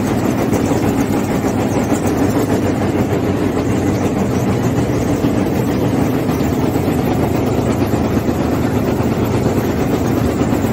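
Needle-punch nonwoven machine running: a loud, steady mechanical noise with an even low hum underneath.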